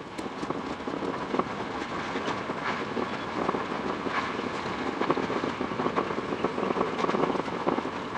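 Running noise of a Tokyo Metro 10000 series electric train heard from on board: a steady rumble with many short clicks from the wheels over the track, several a second at irregular spacing.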